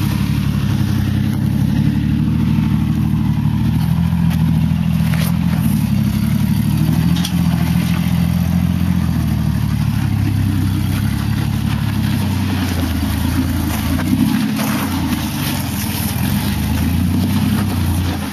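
Rock-crawler truck's engine running under load as it climbs over boulders, its revs rising and falling.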